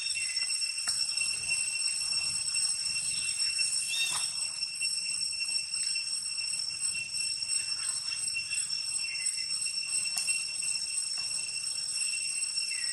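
Steady high-pitched insect drone of a few even, unbroken tones, typical of cicadas, with a few faint short chirps over it.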